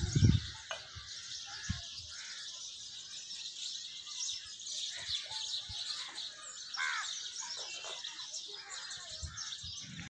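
Many small birds chirping together in a dense, continuous chorus, with a few louder, lower calls standing out here and there.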